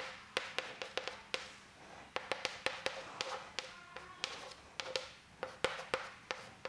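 Chalk writing on a chalkboard: an irregular string of sharp taps with short scratchy strokes between them.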